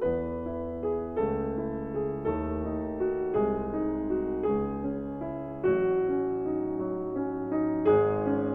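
Background piano music: a slow, gentle piece with sustained chords changing about once a second.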